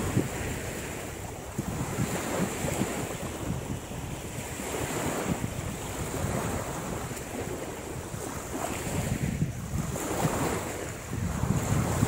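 Wind buffeting the microphone over small waves washing on the shore, the low rumble swelling and easing every few seconds, with a faint steady high-pitched hiss.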